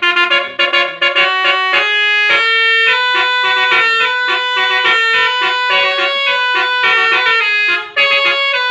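Bus telolet horn playing a melody: a run of short notes, then longer held notes, with a brief break near the end.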